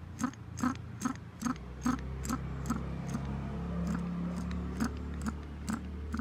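Regular mechanical ticking, about two and a half sharp clicks a second, keeping an even beat over a steady low hum.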